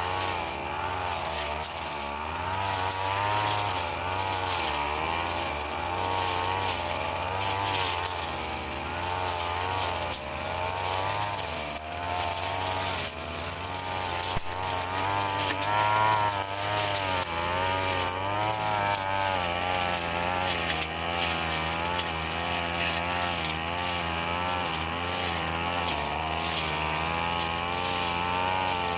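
Brush cutter engine running continuously while cutting grass, its pitch wavering up and down as the load changes.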